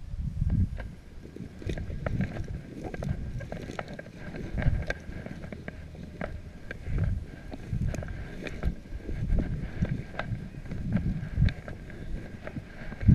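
Footsteps through dry grass and brush, with many short crackles and rustles, while wind buffets the microphone in irregular low gusts.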